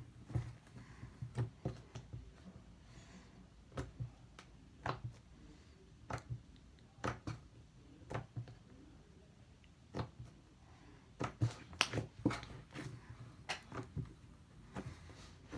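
Fluffy slime being squished and stretched by hand, with irregular sticky clicks and small pops of trapped air, one or two a second.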